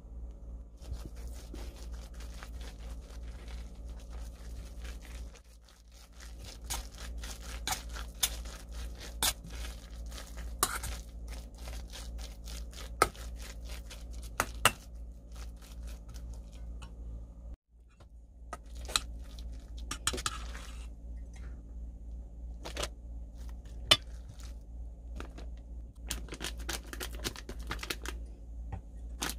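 A metal spoon stirring thick fish-cake paste in a stainless steel bowl, scraping and clicking irregularly against the bowl, over a steady low hum. Near the end a plastic bag crinkles as the paste goes into it.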